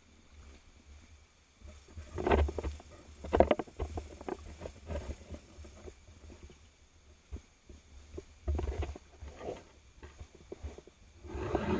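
Muffled water sloshing and knocks of hands handling a speargun and a speared tilapia close to the gun-mounted camera, in irregular bursts over a low rumble, loudest about two and three and a half seconds in and again near the end.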